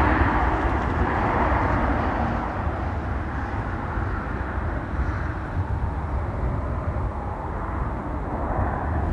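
Airbus A320neo jet airliner on its landing roll: a steady rushing engine noise that slowly fades.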